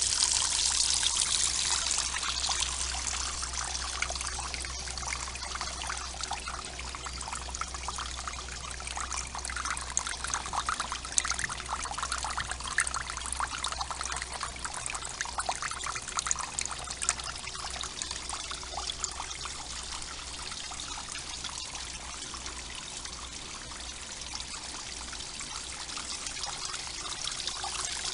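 Filtered water pouring from a raised pond filter and falling back into the pond as a small makeshift waterfall: a steady splashing trickle.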